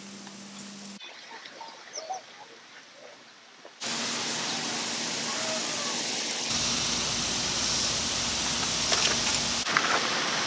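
Steady, even hiss of outdoor background noise that starts suddenly about four seconds in after a quieter stretch. A low rumble joins it for about three seconds in the second half.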